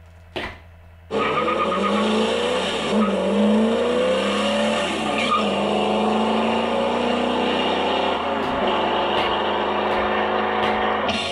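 Two sharp slaps about three quarters of a second apart as the jump rope strikes the floor. About a second in, a loud, engine-like sound with rising and falling whines, like racing cars revving, cuts in suddenly and drowns out the rope.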